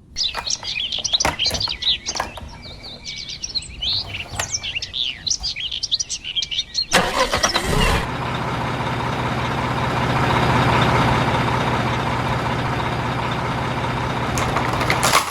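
Birds chirping, mixed with short clicks, for about seven seconds, then a sudden loud, steady mechanical noise with a low hum, like a motor running.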